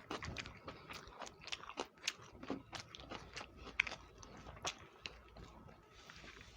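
Close-miked eating sounds: wet chewing and lip-smacking clicks, several a second in an uneven rhythm, from a mouthful of soft egg curry and upma; they thin out near the end.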